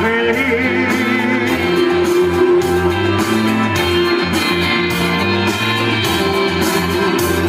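Instrumental break in a karaoke backing track played loud over the bar's sound system: guitar-led pop-rock with a steady drum beat and no singing.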